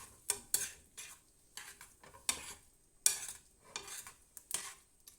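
A utensil stirring and scraping pasta in a pan on the stove, in a quick, uneven series of scrapes.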